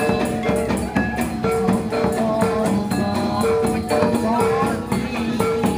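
Live Javanese Bantengan accompaniment music: a percussion ensemble with a quick beat and repeated held notes, with crowd voices underneath.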